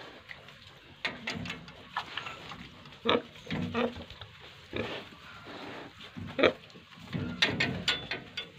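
Pigs grunting, a string of short irregular grunts with a few sharper squeaks among them.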